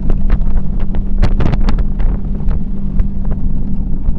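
Mercury Racing 400R supercharged outboard on a tunnel boat running steadily at speed, a constant low drone, heard from the cockpit with wind buffeting the microphone. A quick run of sharp knocks comes in about a second in.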